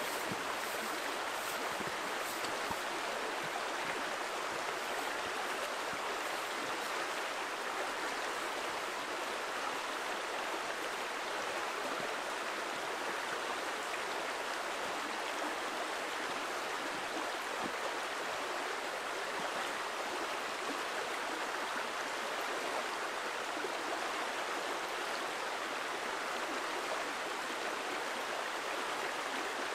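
A small, rocky freestone stream running steadily over stones, an even rushing of water.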